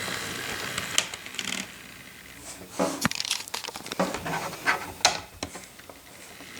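Model diesel locomotive's motor running steadily on the track, stopping about a second and a half in. Scattered clicks, knocks and a crinkling rustle follow.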